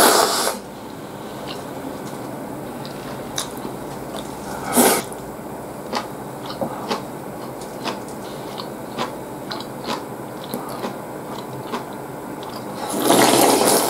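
A person eating ramen noodles: short loud slurps at the start and about five seconds in, and a longer slurp near the end, with chewing and small wet mouth clicks in between.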